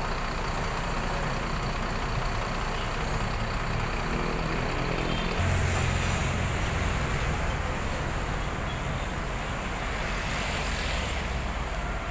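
Intercity coach's diesel engine running at close range, a steady low rumble that grows louder about five seconds in.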